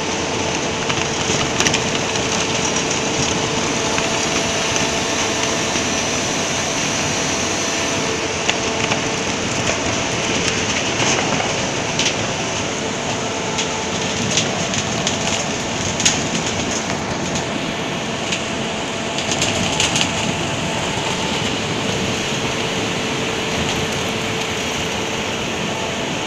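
GRIMME potato conveyor running steadily: a constant mechanical rattle with a faint steady hum. Scattered clatters as potatoes and soil tumble along the belts.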